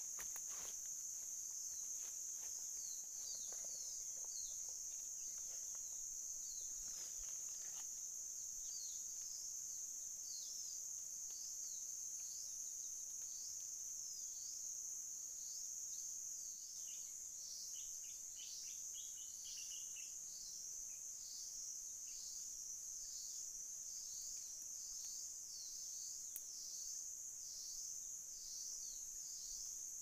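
A steady, high-pitched insect chorus, pulsing rhythmically in the second half. In the first several seconds there are footsteps crunching on dry leaf litter.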